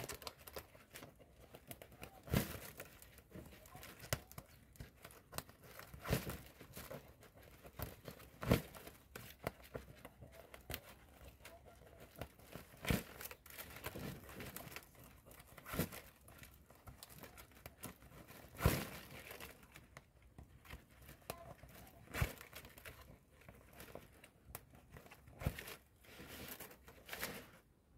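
Dried palm-leaf strips crackling and rustling in irregular sharp snaps as they are bent, pulled and tucked down through a palm weave by hand.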